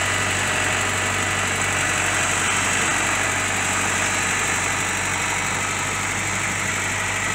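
Tractor engine running steadily while it tows a brakeless old REO truck on a chain.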